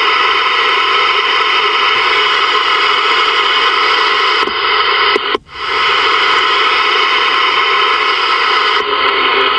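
Ranger VR-9000 multimode CB radio receiver giving out a steady rush of static from the 11-meter band as it steps from channel to channel through the uppers. The hiss drops out sharply for about half a second partway through.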